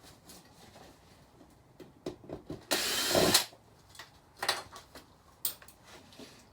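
A cordless drill/driver runs briefly, for under a second about three seconds in, backing out a screw. Scattered light clicks and knocks come from handling the TV's parts.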